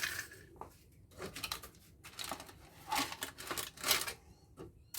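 Hands handling scrap parts from a dismantled air-conditioner unit: about half a dozen irregular short rustling, scraping and clicking sounds.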